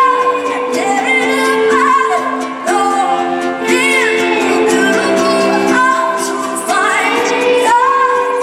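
Live pop performance: a woman singing, her voice sliding up into long held notes over sustained backing chords.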